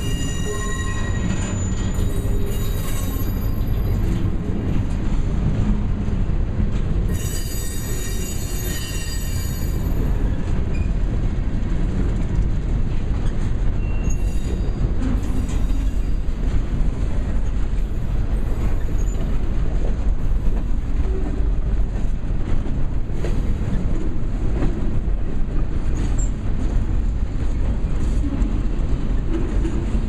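Freight cars of a manifest train rolling slowly past close by: a steady rumble of steel wheels on the rails, with high-pitched wheel squeal in the first few seconds and again about seven to ten seconds in.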